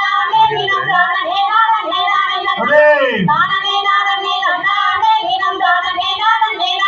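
A voice singing a Tamil kummi dance song, with long held notes that slide up and down between phrases.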